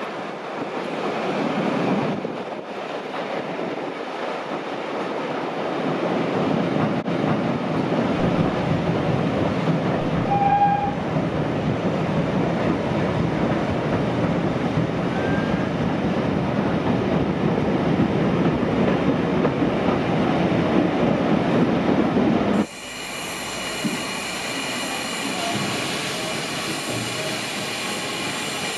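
Steam-hauled passenger train running, heard from an open carriage window: a steady rumble of wheels on rail that swells as the train passes under a bridge and into a tunnel. Near the end it cuts to a steam locomotive standing at a platform with a steady hiss.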